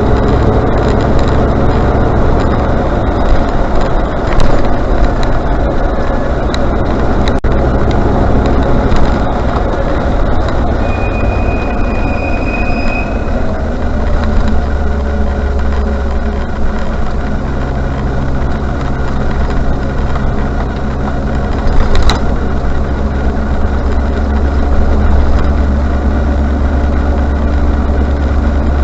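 Range Rover Classic running with engine and road noise, with a brief high-pitched brake squeal of about two seconds some eleven seconds in, which the owner blames on Britpart parts. From about the middle on, the engine settles to a steady low hum at idle, with a sharp click a few seconds before the end.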